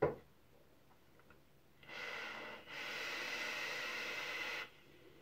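Long draw on a vape: a steady hiss of air pulled through the atomizer over the heated coil for about three seconds, with a brief break early on. A sharp knock at the very start.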